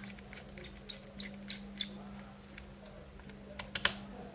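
Small scattered clicks and light metallic ticks of laptop parts being handled while the processor heatsink is fitted, ending in two sharp clicks close together near the end. A steady low hum sits underneath.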